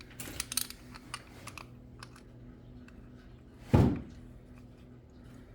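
Small metal parts clicking and tapping, then one louder knock about four seconds in, as the oil filter and its cover are handled and refitted on an ATV engine.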